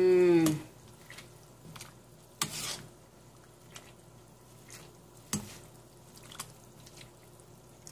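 A metal slotted spoon stirring leafy vegetables and broth in a stainless steel stockpot, with scattered light clinks against the pot, the clearest about two and a half and five and a half seconds in. A short vocal sound comes at the very start.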